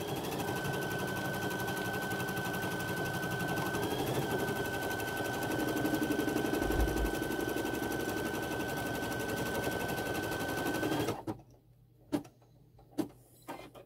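Baby Lock embroidery machine stitching a tack-down line: a fast, steady needle rhythm with a constant motor whine. It stops abruptly about eleven seconds in, and a few light clicks follow.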